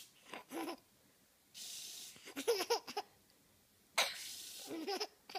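A baby laughs and squeals in short bursts, and between them a spray hisses twice, each hiss under a second long.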